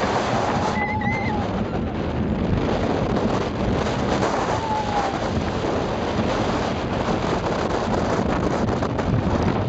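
Wind rushing over the microphone and the rumble of a steel roller coaster train running fast along its track, with a couple of short, high, wavering cries from riders about a second in and midway through.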